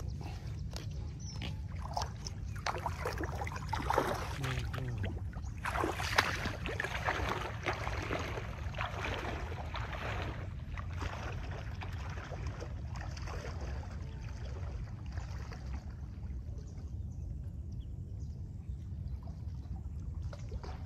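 Water splashing and sloshing as a person wades through shallow water, the splashes strongest in the first half and then settling to a gentler slosh, over a steady low rumble.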